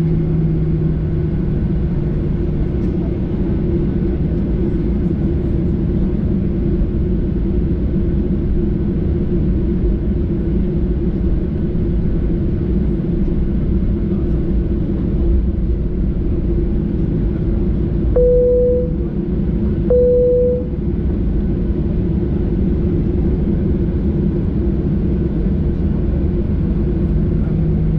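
Steady cabin rumble and hum inside a Boeing 737-800 with its CFM56-7B engines running at a constant, even level. Two short tones of the same pitch sound about two seconds apart past the middle.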